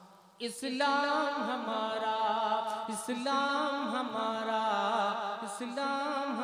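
A man singing a naat unaccompanied, in long drawn-out notes with a wavering vibrato. The line starts about half a second in, after the previous note has died away.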